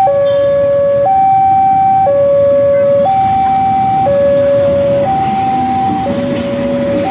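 Railway level-crossing warning alarm sounding, an electronic two-tone signal alternating high and low about once a second, which warns that a train is passing the crossing. Underneath is the steady rumble of a diesel-electric locomotive and its passenger train going by.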